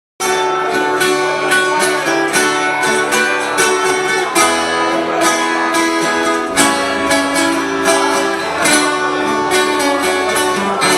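Instrumental introduction on acoustic plucked strings, guitar-like, picking notes and chords; it starts suddenly just after the beginning.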